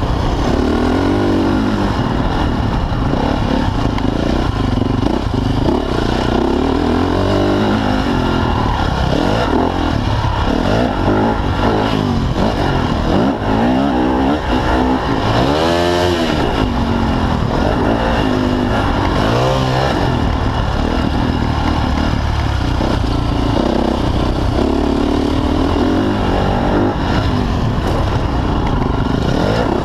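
Motocross dirt bike engine at race pace, heard up close from on board, its pitch rising and falling as the throttle is worked through turns and jumps, with a sharp burst of revs that rises and falls about sixteen seconds in.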